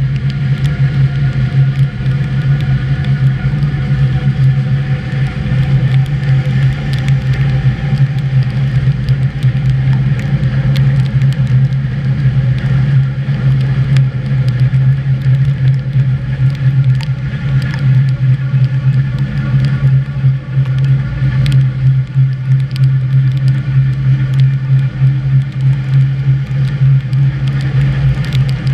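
HÉV suburban electric train running along the track, heard from the driver's cab: a steady low hum with scattered sharp clicks.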